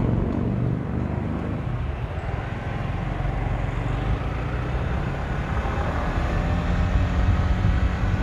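Motorcycle riding at speed, its engine running at a steady high note under heavy wind buffeting on the microphone.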